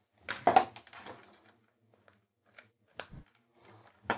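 White USB cable rustling and clattering as it is unwound and handled, then a few sharp light clicks and a knock as the USB plug is handled at the board.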